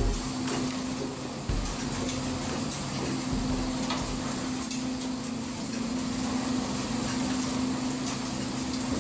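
Deck machinery of a longline fishing boat running during line hauling: a steady hum that wavers in and out over a constant hiss of sea and wind, with a couple of low thuds early on.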